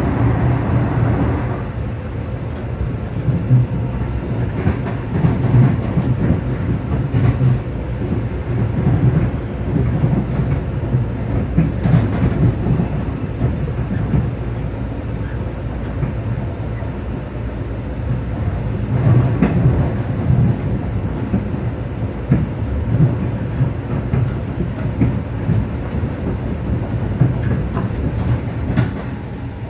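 Long Island Rail Road electric commuter train running along the track, heard from on board: a steady low rumble of wheels on rail that swells and dips unevenly, with occasional sharp clicks.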